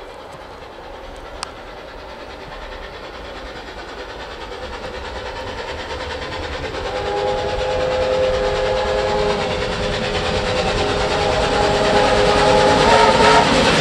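Steam locomotive approaching unseen, its working sound growing steadily louder. About seven seconds in, its whistle sounds a steady chord of several notes, held for several seconds until near the end.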